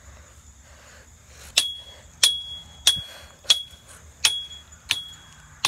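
Metal pipe rail of a chain-link fence being struck with a stick: seven sharp strikes about two-thirds of a second apart, starting about a second and a half in, each leaving a short, high metallic ring.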